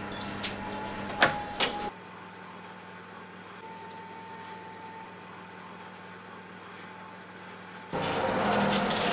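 Electric oven: a few short beeps and clicks, then the quiet steady hum of the oven running. About eight seconds in, a louder rushing hiss starts suddenly as the oven door is pulled open.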